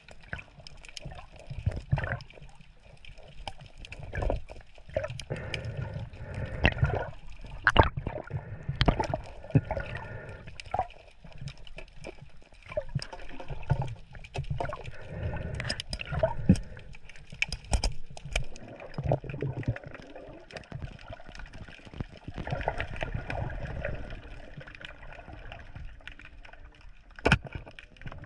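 Water sloshing and gurgling with scattered splashes, broken by many irregular sharp clicks and knocks.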